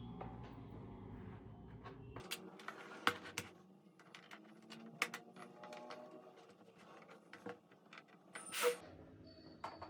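Scattered light clicks and taps of tools and plastic parts being handled while working on a laptop.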